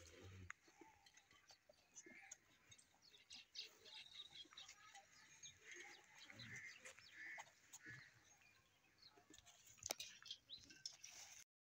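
Quiet farmyard ambience: faint bird chirps and scattered light clicks and rustles, with one sharper click about ten seconds in. The sound cuts off just before the end.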